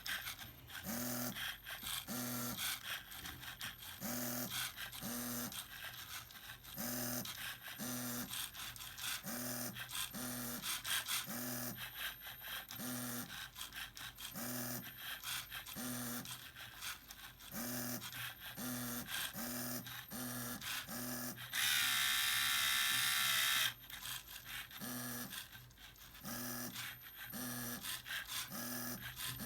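The electric motors of a LEGO Mindstorms printer machine whir, starting and stopping in short bursts about once a second. About three-quarters of the way through, one motor runs continuously for about two seconds with a louder, higher whine.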